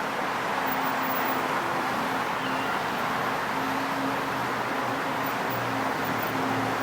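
Steady road traffic noise, with a low engine hum that comes and goes.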